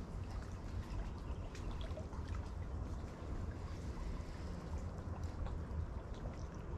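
Gentle water lapping and trickling against the hull of a small fishing boat, with a low steady rumble and faint scattered ticks.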